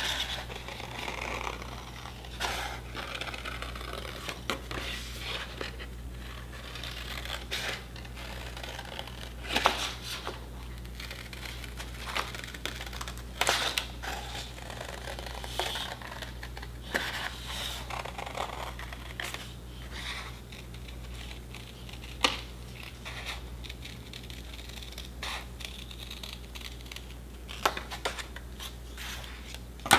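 Scissors snipping through a sheet of drawing paper in irregular cuts, with the paper rustling as it is turned and handled. A steady low hum runs underneath.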